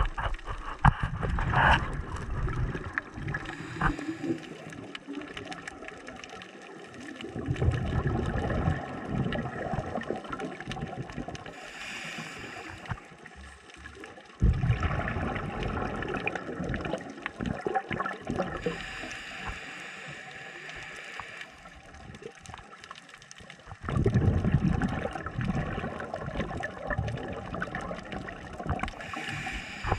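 Bubbling and rushing water heard underwater through an action camera's housing. It comes in irregular surges every several seconds, with scattered small clicks and knocks.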